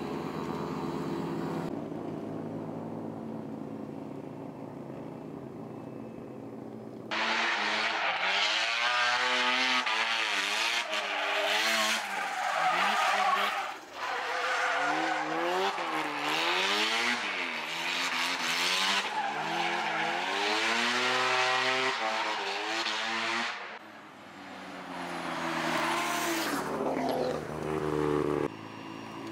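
Mazda FD RX-7 drift car at full effort: the engine is revved hard, its pitch swinging up and down again and again, over tyre screech. Before that a steadier, quieter engine note runs for the first few seconds, and the loud part starts suddenly about seven seconds in.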